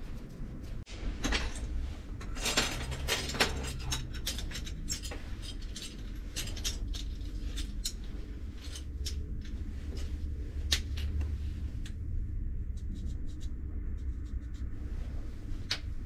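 Copper tubing and small metal parts handled on a steel workbench: scattered clicks, taps and light clatter, busiest early on, over a steady low hum.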